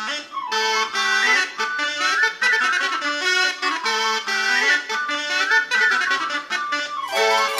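Instrumental music with a running melody over sustained notes.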